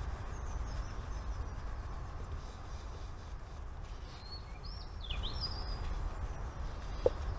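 Steady low outdoor background rumble, with a small bird chirping a few times in the middle and a short squeak near the end.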